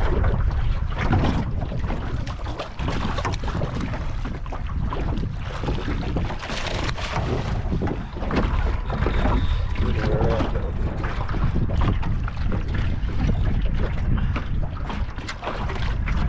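Wind buffeting the microphone in a small aluminium fishing boat, a steady rumble broken by irregular knocks and splashes.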